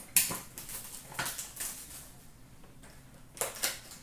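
Cardboard hockey card boxes being handled: a few short knocks, scrapes and rustles as a box is picked out of a bin of boxes and its flap worked open. The loudest knock comes just after the start.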